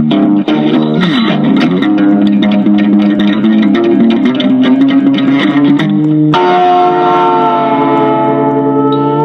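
Background music led by guitar with bass, with a chord held from about six seconds in.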